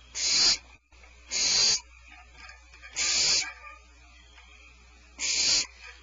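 Young barn owls in the nest hollow giving four harsh hissing calls, each about half a second long and a second or two apart. This is the snoring hiss that barn owl nestlings use to beg for food.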